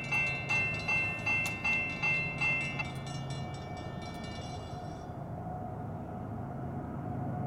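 Railroad crossing bell ringing, about two and a half strikes a second, then falling silent about three seconds in as the gate arms reach horizontal. After it stops, the steady low hum of the approaching locomotive remains.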